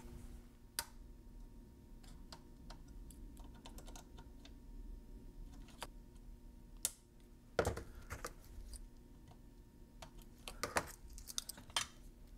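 Small scattered clicks and taps of hands handling capacitor leads, wires and parts on a loudspeaker crossover board, with a few sharper knocks about a second in, around the middle and near the end.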